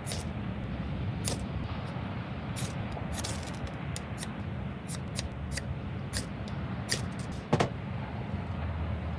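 A knife scraped down a ferrocerium (ferro) rod again and again, striking sparks onto fatwood shavings to light them. It makes short, sharp rasps at an uneven pace, with one louder, fuller scrape about seven and a half seconds in, over a steady low rumble.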